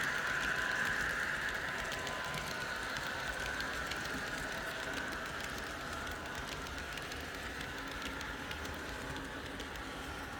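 Model train running along the track: a steady rolling clatter of small wheels with a higher running hum, slowly fading as it moves away.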